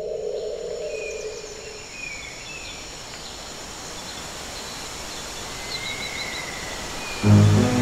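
Steady outdoor background hiss with faint, scattered bird chirps. A low steady tone fades out over the first two seconds, and background music starts abruptly near the end.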